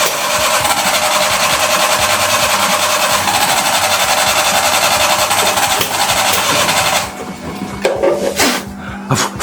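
Suzuki mini truck engine running loudly close by, with a fast, even mechanical chatter, then cutting off abruptly about seven seconds in; a few quieter knocks and rustles follow.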